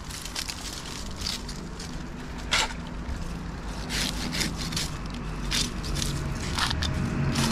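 Scattered scrapes and crackles of a tree climber's rope and gear rubbing against the elm's bark and branches, sharpest about two and a half and four seconds in, over a steady low hum.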